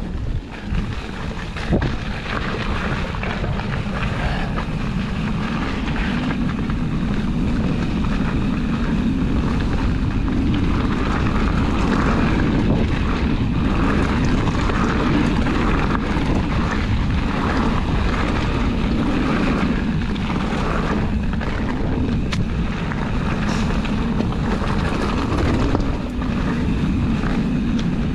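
Steady rush of wind and trail rumble on a rider-mounted camera while riding a trail, with scattered brief knocks.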